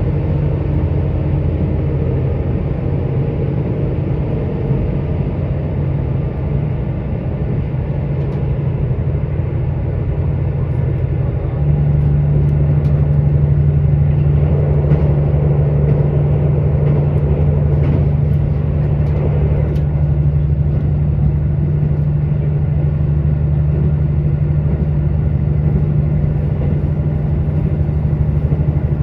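KiHa 85 diesel railcar's underfloor Cummins diesel engine running, heard from inside the carriage over the rumble of wheels on rail. About 12 seconds in, the engine's drone steps up louder to a higher steady note and holds there.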